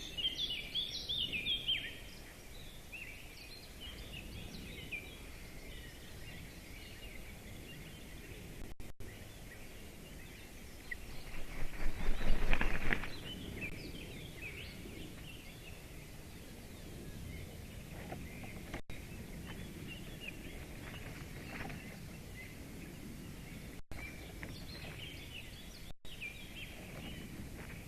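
Small birds chirping and singing in the surrounding woods over a steady outdoor hiss, busiest at the start. About eleven seconds in comes a loud, rough burst of noise lasting about two seconds.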